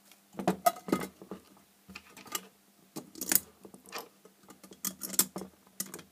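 Irregular clicks, knocks and light clatter of an LED floodlight's metal front cover and small screws being handled on a workbench as the cover goes back on.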